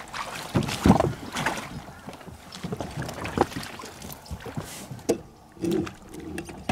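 Irregular knocks, bumps and scrapes with water sloshing as a person climbs into a plastic fishing kayak and settles into the seat. About five seconds in the sound changes abruptly and becomes quieter.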